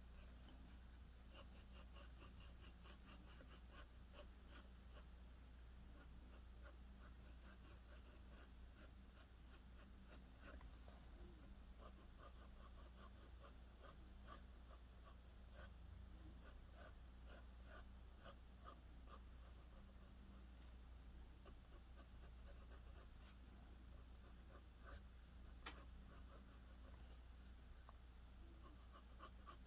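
Faint scratching of a pencil on paper in quick runs of short strokes, with brief pauses between runs, over a low steady hum.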